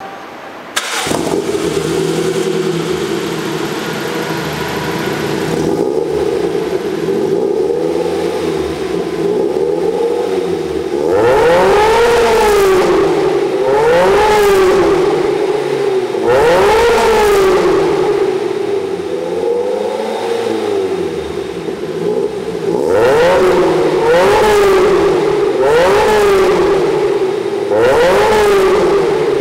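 Lotus Elise S with a Larini Track System exhaust fires up about a second in and idles, then is revved hard in a string of quick throttle blips, each rising and falling back to idle, over the second half.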